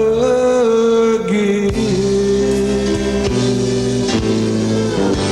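Country band playing the closing bars of a song. A male singer holds the final word "again" for about the first second, then the band plays on alone.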